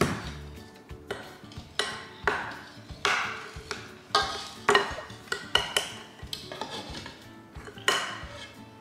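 A knife knocking and scraping against a metal saucepan as chunks of butter are pushed off it into the pan, with a whisk clinking in a mixing bowl: about a dozen irregular sharp clinks and knocks.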